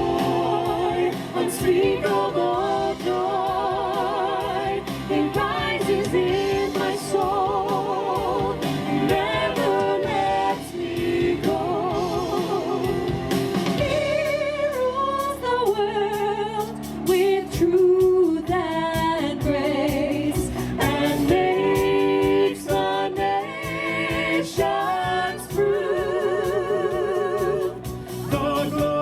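Live singing of a Christmas carol with guitar accompaniment; the held notes waver with a strong vibrato.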